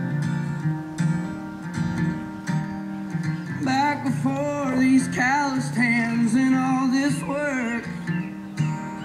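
Music: strummed acoustic guitar, joined by a singing voice with a wavering melody from about four seconds in until shortly before the end.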